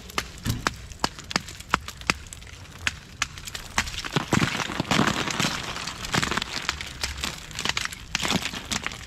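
Thick ice glaze cracking and breaking: a steady run of sharp cracks and clinks, with a denser stretch of crackling about four seconds in as more ice breaks loose.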